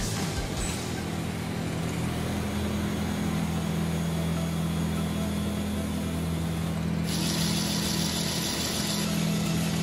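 Steady motor running with an even low hum, no let-up; the hiss over it changes abruptly about seven seconds in.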